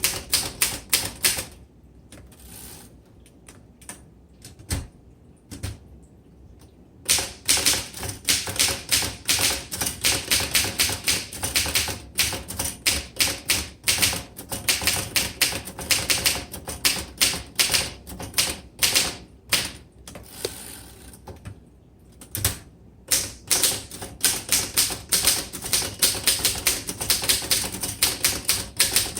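A 1926 Royal Model 10 manual typewriter being typed on: fast runs of sharp key and typebar clacks. A pause of a few seconds comes near the start and a shorter one about three quarters of the way through.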